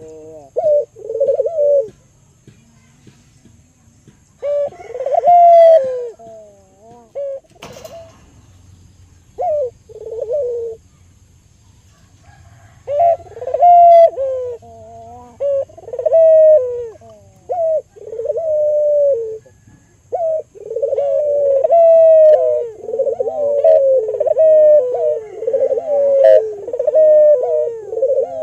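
Albino barbary dove (puter) cooing in repeated rolling phrases, with a pause of several seconds in the middle and a nearly unbroken run of coos in the last third. A single sharp click sounds a little before the pause.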